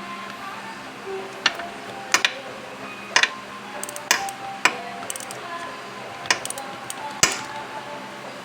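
Metal hand tools clinking and knocking during engine work: about seven sharp, irregular knocks over several seconds, the loudest near the end, with faint music underneath.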